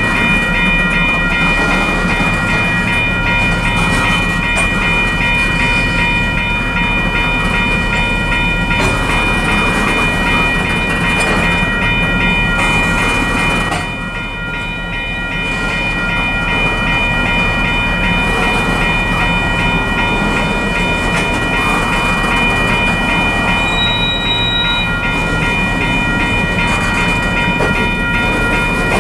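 Freight cars of a passing manifest train, covered hoppers and a tank car, rolling by with a steady rumble of wheels on rail. Over the rumble runs a steady high-pitched squeal made of several tones, and the sound eases briefly about halfway through.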